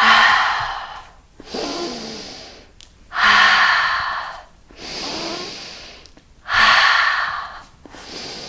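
A woman breathing hard through the mouth while exercising: a loud exhale about every three seconds, with a quieter inhale between each.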